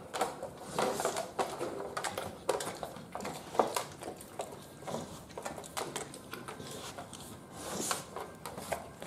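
An American Bully eating raw satin balls, a sticky ground-beef mix, licking and chewing it off the floor and a metal pan: quick, irregular wet smacks and clicks.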